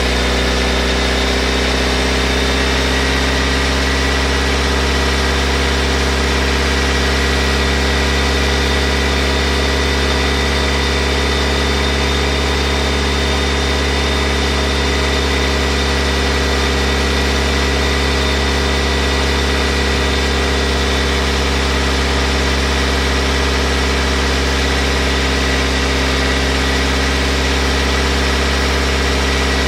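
BMW E90 3 Series engine running steadily at a constant speed, with a faint, thin, steady whine above the engine note.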